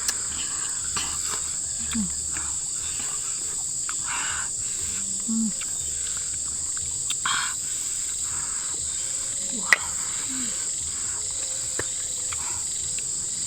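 Steady high-pitched drone of insects, with a few short rustling noises and one sharp click about ten seconds in.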